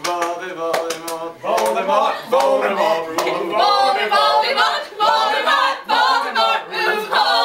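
A group of young people singing and chanting together, several voices overlapping and out of step with each other.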